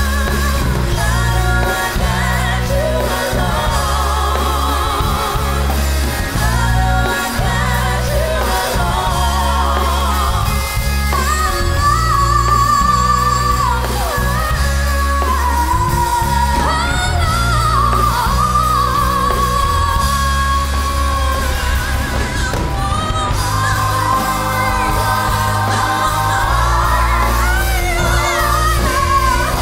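Pop-rock song performed live: singers belting into microphones over amplified backing music with a heavy, steady bass. There are long wavering held notes in the middle.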